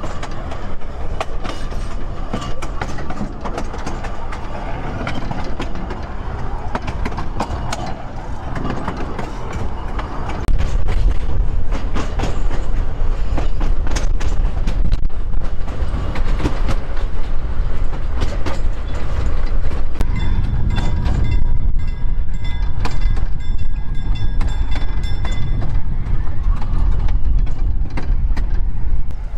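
Narrow-gauge (750 mm) railway carriage running along the track, its wheels clicking and rattling over rail joints and points. A steady low rumble grows louder about a third of the way in.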